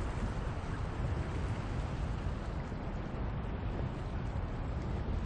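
Steady outdoor rushing noise with a low rumble: wind on the microphone together with sea water washing against the rocks of a jetty.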